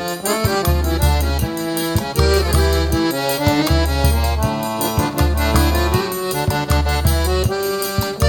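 Instrumental forró pé de serra music: accordion playing the melody over a steady bass-drum pulse and percussion.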